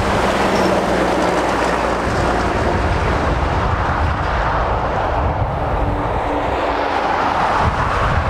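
A tipper lorry's diesel engine and tyres pass close and fade as it drives away, a steady rumbling road noise. Near the end a car comes by on the road.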